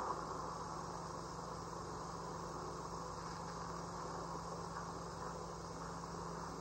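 Steady hiss and low electrical hum of an old optical film soundtrack, with no distinct sound event; a faint steady hum tone comes in just after the start.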